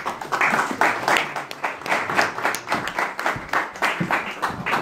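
Audience applauding, with sharp hand claps close by coming at about four or five a second over the general clapping.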